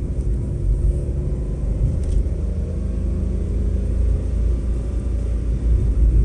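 Car driving along a road, heard from inside its cabin: steady low rumble of engine and road noise with a faint engine hum.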